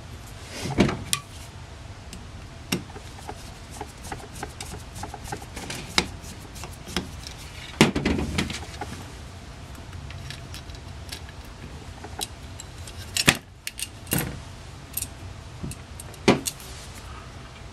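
Light metallic clicks and clinks of small carburetor parts being handled and fitted onto a Rochester Monojet one-barrel carburetor, scattered and irregular, with a handful of louder knocks.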